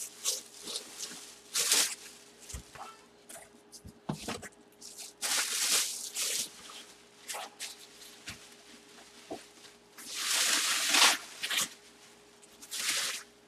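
Thin plastic bag rustling and crinkling in repeated bursts as it is pulled and wrapped around a football helmet.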